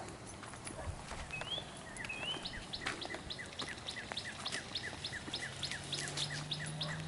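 Wild songbird singing: two short rising whistles, then a fast, even run of repeated chirps, about four a second.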